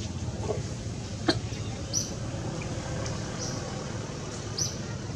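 Steady low rumble of distant motor traffic, with one sharp click a little after a second in and two short, high chirps about two and a half seconds apart.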